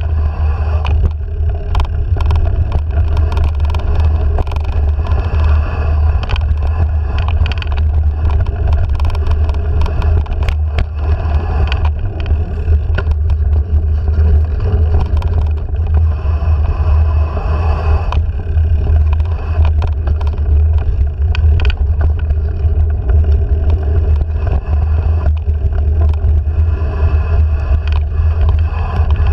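Wind noise and rolling rumble on a handlebar-mounted action camera as a mountain bike rides down a dirt singletrack, with frequent small clicks and rattles from the bike over bumps in the trail.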